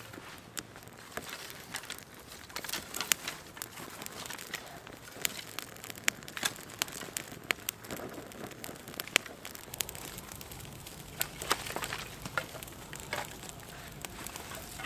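Freshly lit campfire of dry twigs over fatwood catching and crackling, with irregular sharp pops and snaps. Dry twigs rustle as more are laid on at the start.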